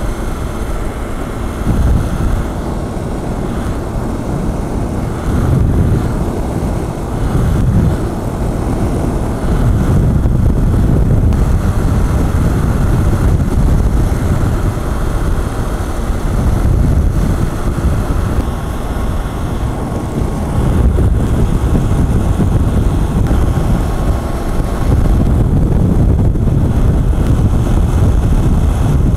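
Motorcycle cruising at steady highway speed: the engine running under a steady rush of wind over the rider's microphone.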